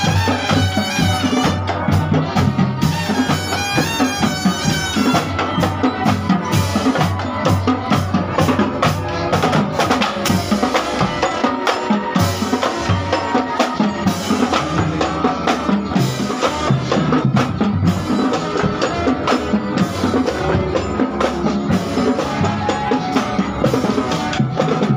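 Marching drum corps playing: snare drums rattle out a fast, steady street cadence over a bass drum beat. A high melodic line rings over the drums for the first few seconds.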